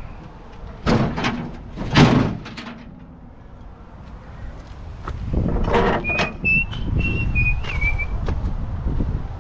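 Two heavy thuds about a second apart, then a clattering scrape with a thin, wavering squeal lasting about two seconds.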